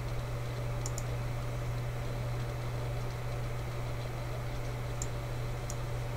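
Steady low hum with hiss from the recording setup, with a few faint clicks: two close together about a second in and two more near the end.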